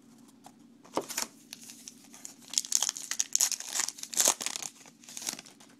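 Trading card pack wrapper crinkling as it is torn open. A run of sharp crackles starts about a second in and is loudest in the second half.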